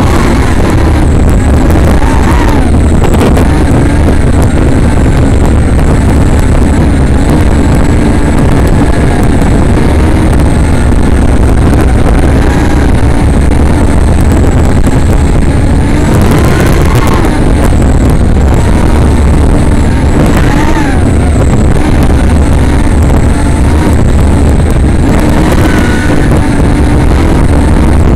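Brushless motors of a 3-inch FPV quadcopter, heard loud through its onboard microphone, whining over a heavy rush of noise, the pitch climbing and falling several times as the throttle changes.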